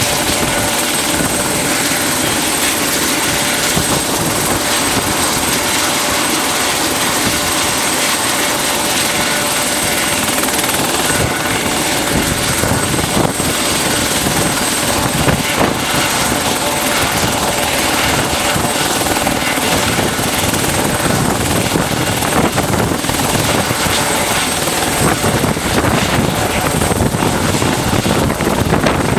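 Eurocopter EC120 Colibri helicopter running on the ground with its rotor turning: a loud, steady mix of Arrius turboshaft whine, rotor whirr and Fenestron tail fan, with a steady high-pitched whistle over it.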